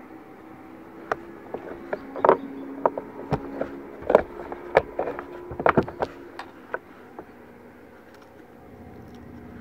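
Irregular sharp clicks and knocks of fishing tackle being handled in a kayak, a run of them over about six seconds, over a steady low hum.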